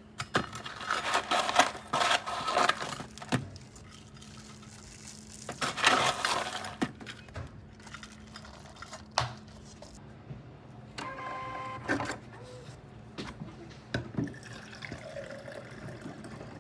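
A scoop rustling through a plastic tub of crunchy caramel topping and scattering pieces onto a drink, with clinks and knocks, in two bursts. A steady low hum runs underneath, and a brief squeak comes about eleven seconds in.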